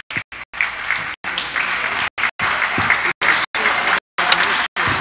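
Audience applauding a performer who has just been introduced. The applause is broken several times by brief dropouts into total silence.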